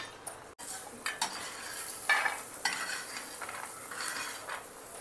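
Metal spatula scraping across a hot iron tawa as roasted peanuts and green chillies are scooped off it onto a steel plate, with a light sizzle of oil. The scraping strokes are loudest about two seconds in.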